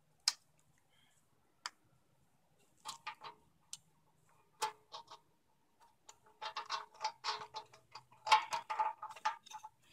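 Scattered clicks, then a quick run of ticking in the last few seconds, from fastening a plastic foot to the base of a vintage Craftsman air compressor with a quarter-20 screw.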